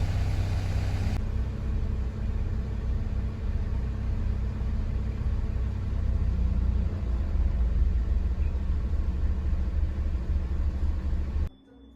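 Steady low rumble, thinner about a second in, that cuts off abruptly near the end.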